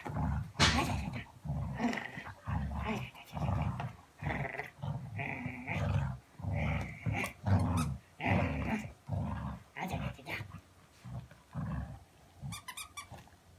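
Dog play-growling over a ball toy, a steady run of short growls about one every half second to second, weakening near the end. A few light clicks near the end.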